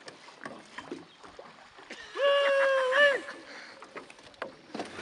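A man's loud, drawn-out whoop, held on one pitch for about a second, a couple of seconds in, amid otherwise faint knocks and clicks.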